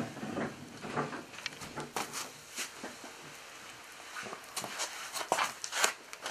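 Scattered light knocks and clicks, irregularly spaced, from someone moving about and handling objects.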